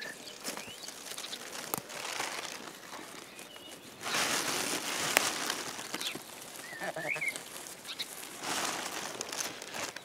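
Rustling and crinkling of dry pine needles, moss and forest litter as chanterelles are cut and picked by hand with a small knife, swelling into two louder spells of rustling about four seconds in and near the end. A bird chirps faintly a couple of times.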